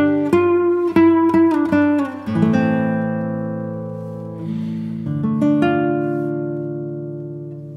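Background music on acoustic guitar: quick picked notes for the first couple of seconds, then slower chords left ringing and fading away.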